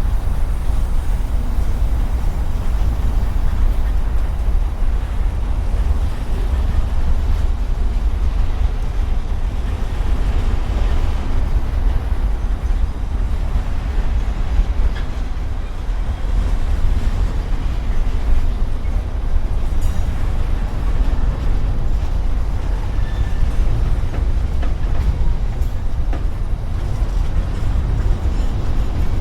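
Norfolk Southern mixed manifest freight train rolling past, a steady low rumble of wheels on rail.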